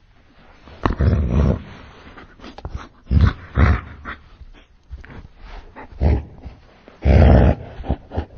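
Angry dog barking, slowed down to slow motion so each bark is deep and drawn out: five loud barks, the first (about a second in) and the last (near the end) longer than the three between.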